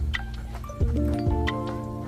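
Background music with a steady drum beat over sustained chords and a bass line.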